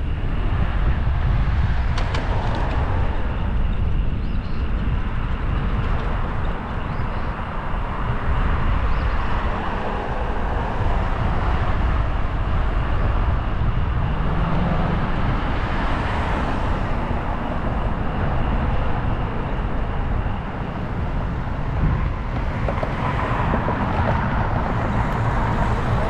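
Wind rushing over the microphone of a camera on a moving bicycle: a steady, heavy rumble with no clear pauses, dipping briefly twice.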